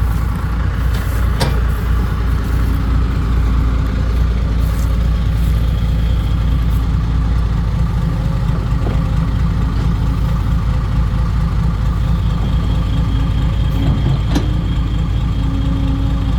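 Diesel dump truck engine running steadily with a deep low rumble.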